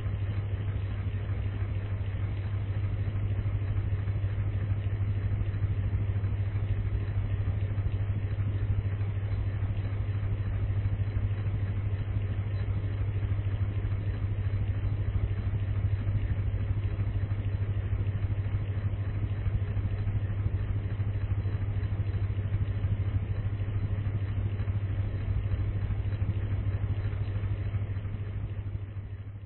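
Electric fan running steadily: an even rush of moving air over a low motor hum, fading out near the end.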